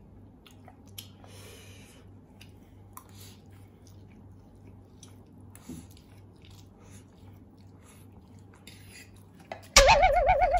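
Faint chewing and eating of spicy instant noodles, with light clicks of a fork. Near the end, a sudden loud wavering vocal cry.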